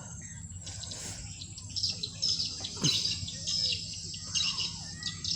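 Small birds chirping, short high calls that come thick and fast from about two seconds in, over a thin steady high tone.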